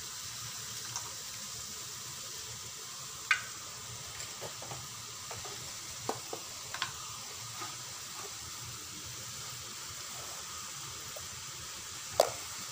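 Tamarind water poured into a hot wok of spiced pumpkin, then the mixture sizzling steadily. A few sharp clicks stand out, the loudest near the end.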